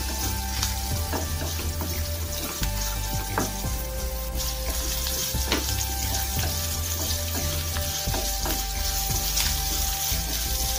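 Sliced onions, garlic and curry leaves sizzling in hot oil in a kadai, stirred with a wooden spatula that clicks and scrapes against the pan now and then. The onions are being sautéed until they turn translucent.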